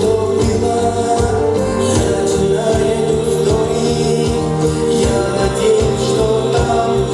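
Pop song playing loudly, with sustained chords over a steady beat.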